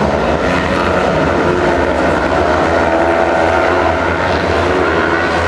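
A pack of 500 cc kart cross cars racing on a dirt track, their engines heard from a distance as a steady mixed drone. Several engine notes overlap, rising and falling as the drivers accelerate and lift.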